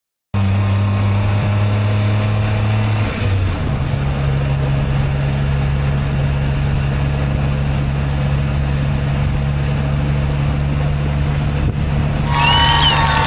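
Car engine running at a steady drone during driving; the note steps up a little over three seconds in as the revs change. Near the end a brief higher-pitched gliding sound joins in.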